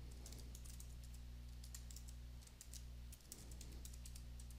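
Faint computer keyboard typing: a run of quick, irregular key clicks as an email address is typed, over a steady low hum.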